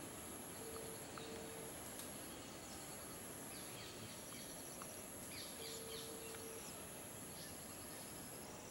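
Forest ambience of insects and birds: a continuous high, thin insect buzz and an evenly pulsing cricket-like chirr, with scattered short bird chirps around the middle. A short low steady note sounds near the start and again about six seconds in.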